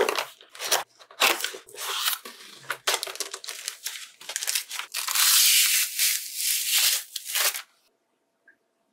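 Cardboard keyboard box and its packaging handled during unboxing: the box opened and the keyboard pulled out, a quick run of rustling, scraping and crinkling. It is densest shortly after the middle and stops about a second before the end.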